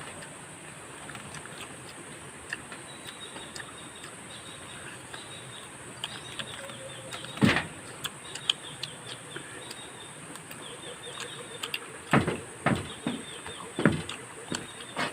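Outdoor ambience with short repeated bird chirps and a steady high insect hiss, broken by a few sharp knocks and taps from handling food and dishes while eating: one about halfway through and a cluster in the last three seconds.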